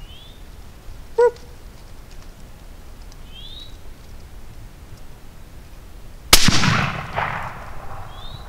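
.243 Winchester rifle firing a single shot about six seconds in: a sharp crack that rolls off in echoes over about two seconds. About a second in there is a brief pitched yelp, and a bird gives three short rising chirps.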